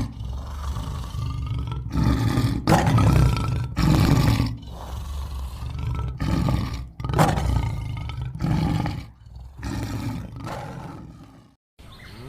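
Lion roaring: a series of deep roars in quick succession, one every second or so, that stops shortly before the end.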